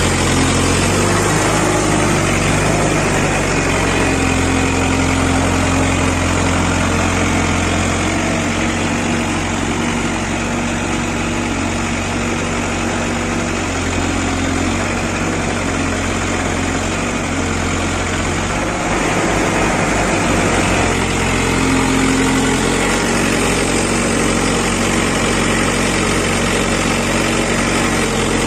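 JCB 5CX backhoe loader's diesel engine running steadily, its note shifting a little as the machine works, easing off slightly in the middle and picking up again after about twenty seconds.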